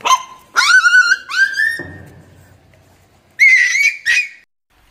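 A small puppy giving several high-pitched yelping whines, some rising in pitch, in three bursts, the last near the end.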